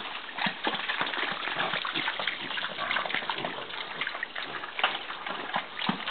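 Pigs in a pen, a dense run of short irregular noises mixed with wet sloshing sounds.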